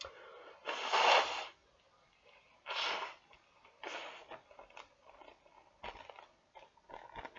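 A clear plastic bag being handled and crinkled: a few rustling bursts, the loudest about a second in, then lighter crackles.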